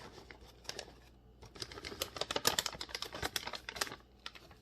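Rapid, irregular light clicks and taps as shredded cheese is scattered and spread by hand over the top of a casserole, busiest in the middle of the stretch.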